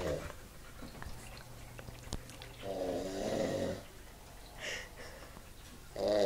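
A man snoring loudly in his sleep: one long snore about halfway through, and another starting near the end, with quiet breathing between.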